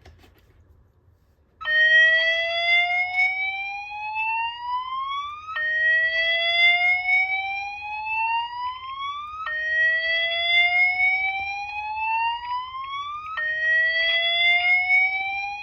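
Edwards EST fire alarm speaker strobe sounding a slow whoop evacuation tone: a rising sweep that starts again from the bottom about every four seconds, beginning about a second and a half in. The tone is the alert that comes before a voice evacuation message.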